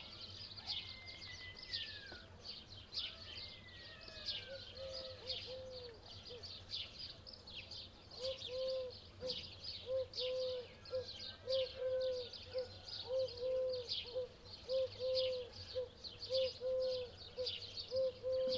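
Many small birds chirping together in a steady stream of short, high notes. From about eight seconds in, a dove cooing in short, low, repeated notes, about one and a half a second, becomes the loudest sound.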